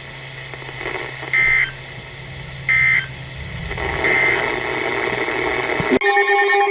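Weather-radio alert data tones: three short digital chirps near 2 kHz, about a second apart, over radio hiss and hum, typical of the end-of-message bursts that close an alert. Near the end the audio cuts abruptly to a different steady electronic signal of several tones at once.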